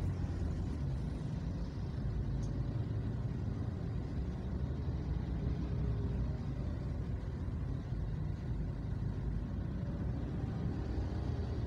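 Steady low rumble of a car driving through slow city traffic: engine and road noise.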